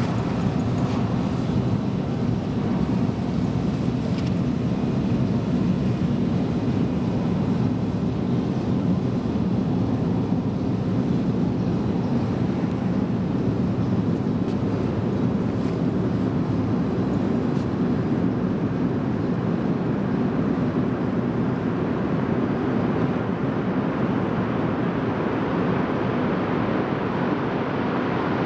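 Steady low rumble of an empty underground metro platform, with no train in view. Its higher hiss thins a little near the end.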